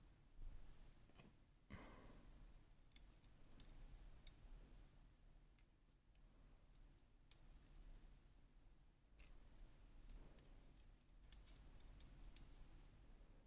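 Faint, scattered light clicks and ticks of small metal lock wafers being handled and set down one at a time.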